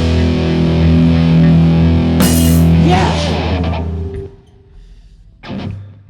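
Live rock band holding a final chord on electric guitar and bass, with a cymbal crash about two seconds in. It stops about four seconds in, leaving a couple of short, quiet guitar chords near the end.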